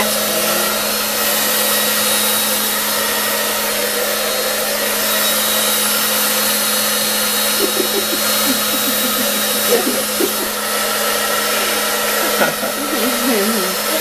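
Handheld hair dryer running steadily, a constant rush of blown air with an even hum.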